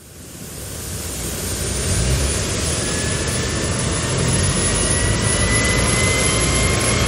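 Helicopter turbine engine spooling up for takeoff. The sound swells from quiet to loud over the first two seconds, and a high whine keeps rising slowly in pitch.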